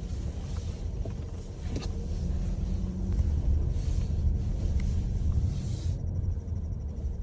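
Car cabin rumble from engine and road noise, heard from inside the moving car.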